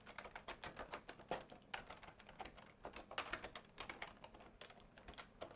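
Faint typing on a computer keyboard: quick, irregular key clicks, several a second.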